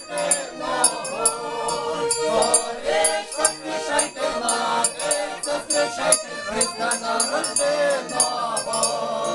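A mixed group of carolers singing a Ukrainian Christmas carol (koliadka) together, men's and women's voices. An accordion accompanies them, and a brass hand bell rings in a steady beat.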